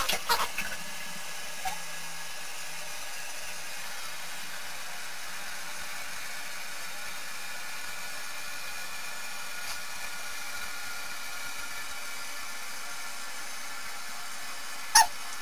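Steady, even hiss, with a short sharp noise near the end.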